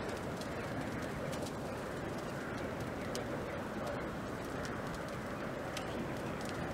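A burning stack of straw bales: a steady rushing noise with sharp crackles and pops every so often. A bird calls in the background.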